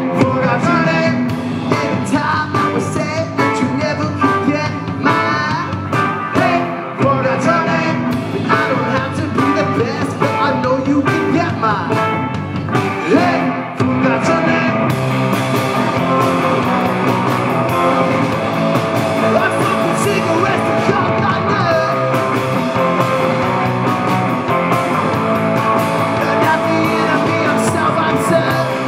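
Live rock band playing loud: electric guitars, bass and drum kit, with singing in the first part. About fourteen seconds in, the choppy, accented playing gives way to a denser, steady wall of guitar.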